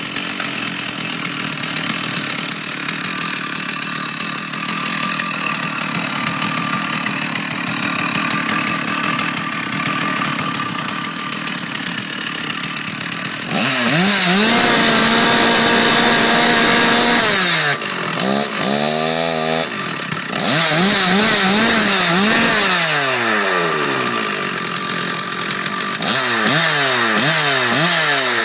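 Stihl 046 two-stroke chainsaw engine running steadily. About halfway through it is revved up to a high, held pitch for a few seconds, then blipped up and down several times, with quick rises and falls near the end.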